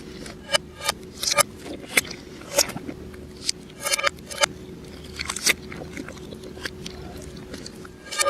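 Close-up mukbang eating sounds played in reverse: irregular crisp crunches and chewing, one every half second or so, over a faint steady hum.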